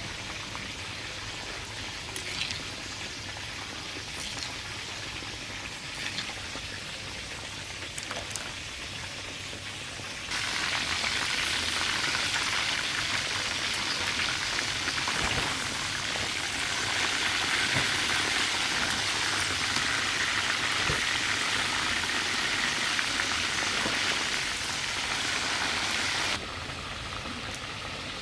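Chicken frying in a pan, a steady crackling sizzle. It turns abruptly louder and brighter about a third of the way in and drops back just as suddenly near the end.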